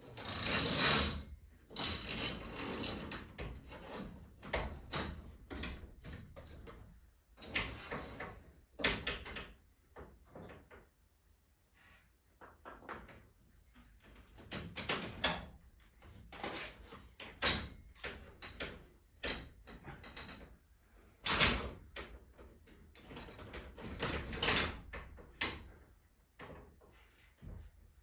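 Irregular metal clanks, clicks and scraping from tools and hardware being worked on a garage door torsion spring assembly, with a sharp clank about a second in and another loud one about two-thirds through.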